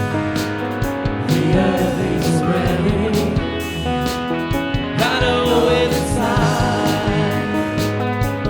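Live worship band playing a praise song, with a steady drum beat under a sung melody.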